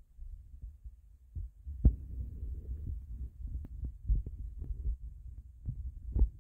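Handling noise on a handheld phone's microphone: a low rumble with irregular soft thumps, the loudest about two seconds in and another near the end.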